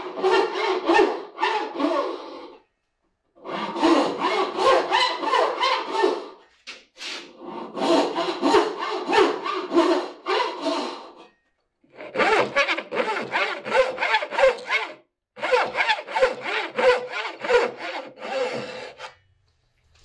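Hand saw with a wooden frame cutting through a board. It makes rapid back-and-forth strokes in five runs with short breaks between them.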